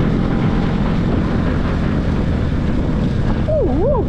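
Motorcycle running on the road, with wind buffeting the microphone over a steady low engine hum. Near the end, a warbling tone rises and falls several times, about twice a second.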